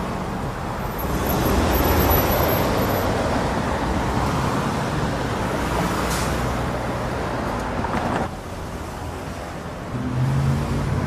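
City street traffic: a city bus engine running close by amid passing cars. The level drops about eight seconds in.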